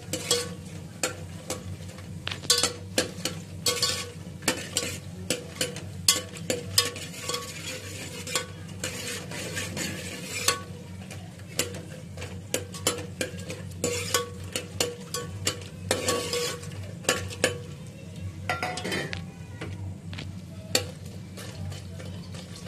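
Makhana (fox nuts) frying in mustard oil in an aluminium pot. A metal slotted spoon stirs them, making frequent clinks and scrapes against the pot over a sizzle, with a steady low hum underneath.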